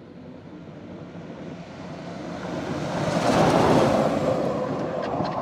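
EV West SRI EV1 electric off-road race buggy, with twin 9-inch DC motors, driving past on desert dirt: a rushing noise that builds to a peak about three and a half seconds in, then fades as it moves away.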